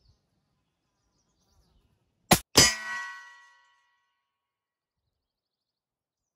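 A single shot from an AirForce Texan .50 caliber big-bore air rifle, followed about a quarter second later by the sabot'd copper slug striking a steel plate target, which clangs and rings, fading over about a second.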